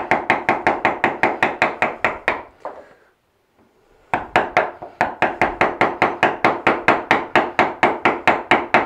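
Wooden mallet striking a wood-handled bench chisel in quick, even blows, about five a second, chopping waste out of a lap-joint recess in poplar. The blows stop for about a second and a half around three seconds in, then start again.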